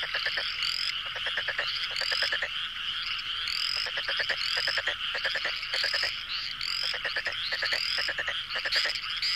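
A chorus of frogs calling: many overlapping rapid pulsed trills, with short rising chirps repeating every half second to a second.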